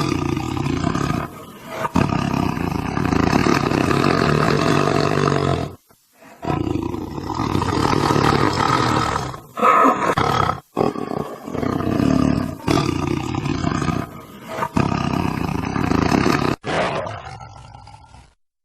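Tiger roaring and growling: a run of long, rough roars, one after another with brief breaks between them, cutting off abruptly near the end.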